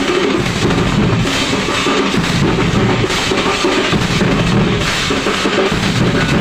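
A band of large double-headed drums (dhols) beaten together with sticks, loud and unbroken, in a dense rhythm.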